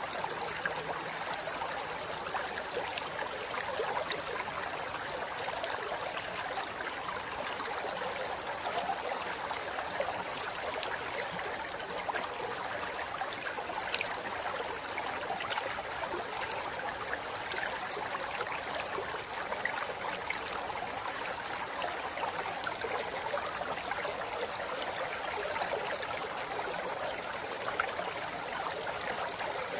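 River water running over rocks in a steady, even rush with small splashes and gurgles throughout.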